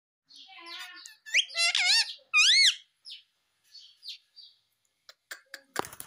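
Rose-ringed (Indian ringneck) parakeet vocalising: soft chattering, then several loud shrill calls that each rise and fall in pitch within the first three seconds, followed by quieter short chirps. Near the end come a few sharp clicks.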